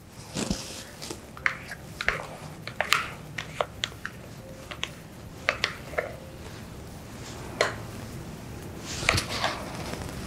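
Scattered light clinks and taps of a glass bowl and utensil against a stainless steel mixing bowl, a dozen or so sharp knocks at uneven intervals, as egg-yolk batter is poured onto whipped egg whites.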